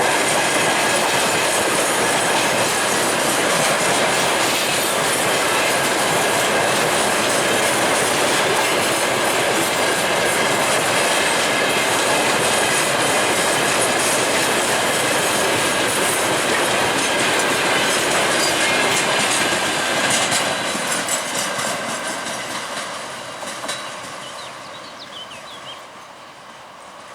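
A freight train of tank wagons rolling past, steady wheel-on-rail noise with a clickety-clack over the rail joints and a thin squeal from the wheels. About twenty seconds in, the end of the train goes by and the noise fades away.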